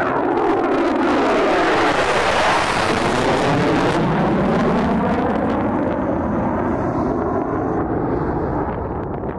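Fighter jet's engine at full takeoff power as it lifts off and climbs away: a loud, continuous jet roar with a sweeping, phasing tone. It is strongest a couple of seconds in, its high hiss drops off about four seconds in, and the roar eases slowly near the end.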